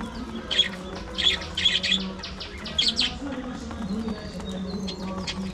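Budgerigars chirping in short clusters of quick calls, with a steady low hum underneath.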